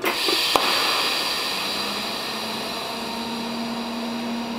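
TIG welding arc struck suddenly, then running as a steady hiss, with a sharp click about half a second in and a low steady hum coming in after a second or so. The arc is near maximum on the foot pedal, about 80 amps, with filler rod being fed into the puddle.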